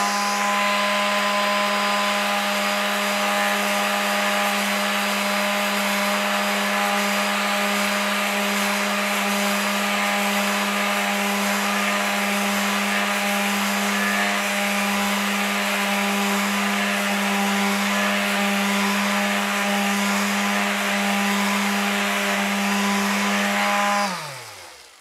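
Worx WX822 cordless detail sander, its brushed motor running steadily while the beaver-tail attachment sands a piece of hard, mature balsa wood. Near the end it is switched off and the motor winds down with a falling hum.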